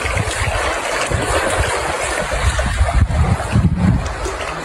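Wind buffeting an outdoor phone microphone in uneven low rumbling gusts, over a steady rushing hiss.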